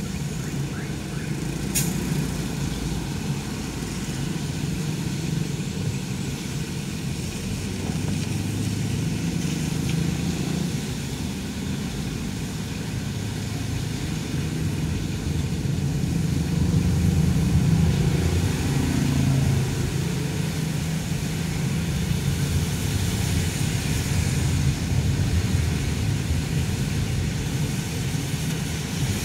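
Steady engine and road noise of a car driving slowly in traffic on wet streets, heard from inside the cabin as a continuous low rumble. A brief click about two seconds in.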